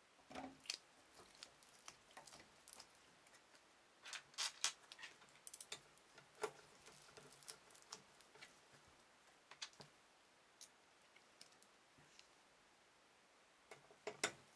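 Faint, irregular clicks and light metallic taps of screws and a screwdriver as drive-mounting screws are driven into a computer case's drive bays.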